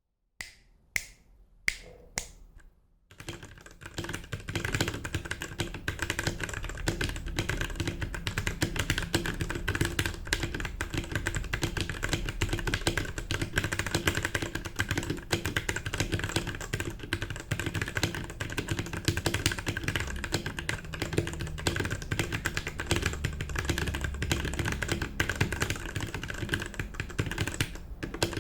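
Royal Kludge RK68 mechanical keyboard with linear red switches being typed on: four single keystrokes, then fast continuous typing.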